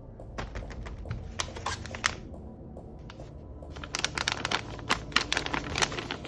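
Paper being handled, crinkling and rustling in two bursts of sharp crackles, over steady background music.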